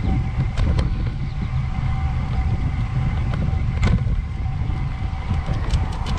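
Bicycle being ridden, with a steady low wind and road rumble and a few sharp creaks or clicks from the bike, the loudest about four seconds in. This is the creak the rider is chasing, which he finds louder when out of the saddle and climbing.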